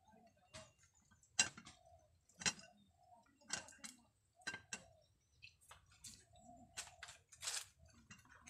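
Wood cooking fire under a pot, popping and cracking with about a dozen sharp, irregular snaps.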